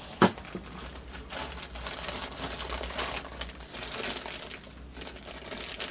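Clear plastic bags of resin model-kit parts crinkling as they are handled, with one sharp knock just after the start.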